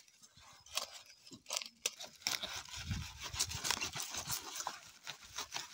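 Mint stems snapping and leaves rustling as sprigs are picked by hand, a run of irregular small crackles with a few soft low thuds.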